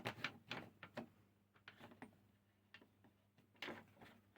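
Quiet, irregular clicks and light taps as a loose part of a table-saw thin rip jig is tightened by hand, over a faint steady hum.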